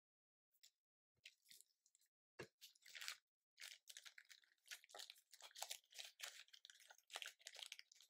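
Small paper pieces and a clear plastic sleeve handled, crinkling and rustling: a few faint ticks, then dense, irregular crackling from about two and a half seconds in.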